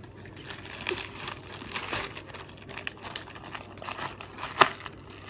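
Slime being squeezed and stretched by hand, making irregular crackly clicks and small pops, with one sharper pop about four and a half seconds in.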